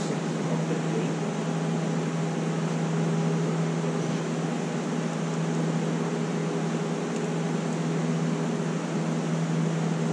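A steady, unchanging mechanical drone with a constant low hum from the 1955 Chevy's engine bay.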